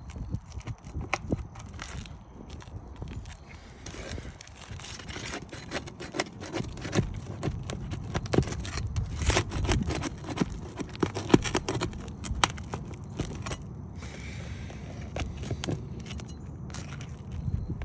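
Asphalt roof shingles scraping and clicking as the nails of a creased shingle are pried out and the shingle is worked loose, an irregular run of short clicks and scrapes.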